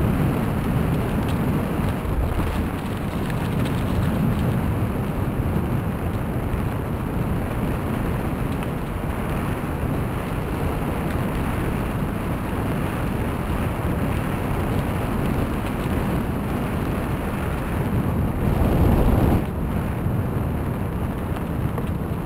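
Steady wind rush on the microphone of a camera riding on a moving bicycle, mixed with the rolling noise of tyres on a crushed-stone trail. It swells briefly a few seconds before the end.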